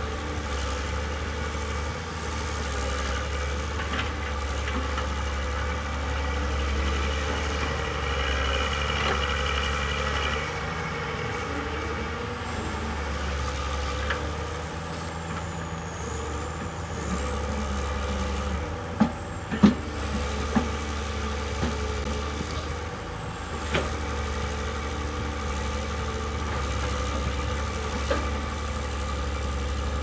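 Old Komatsu hydraulic excavator's diesel engine running steadily while it digs. A few sharp knocks come about two-thirds of the way through.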